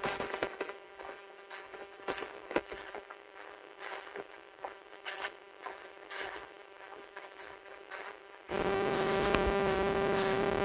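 Footsteps crunching through dry fallen leaves on a forest trail, irregular and about two a second, over a steady buzzing hum. The hum becomes much louder and fuller about eight and a half seconds in.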